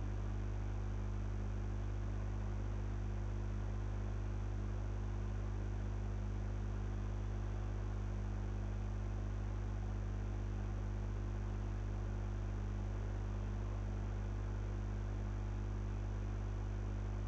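Steady low electrical mains hum with a faint hiss.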